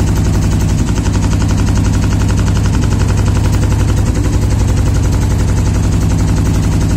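ANZE CNC leather hole-punching machine punching at high speed: a rapid, even stream of knocks, many a second, over a steady low hum.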